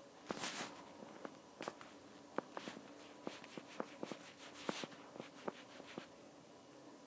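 Stylus tapping and stroking on a tablet's touchscreen during fast sketching: a run of irregular sharp taps, with a brief swish about half a second in and another around five seconds in, over a faint steady hum.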